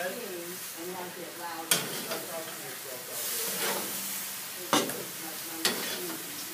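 Hamburger patties sizzling on a gas grill, the hiss swelling about three seconds in, with sharp clicks about a second and a half in and twice near the end as the burgers are taken off the grate.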